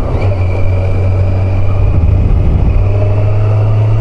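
Kawasaki Z900's inline-four engine running under way as the bike is ridden. The note shifts right at the start, then holds steady and rises slightly near the end.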